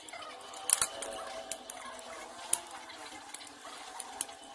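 Hard plastic kit parts being handled: a yellow plastic wheel sprue and a clear plastic part clicking and tapping against each other. The sharpest click comes about three-quarters of a second in, with a few lighter taps after it, over a faint background hum with some wavering tones.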